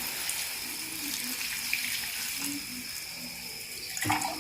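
Water pouring steadily into a pan of sautéed crabs, added to make a little broth, with a short knock about four seconds in.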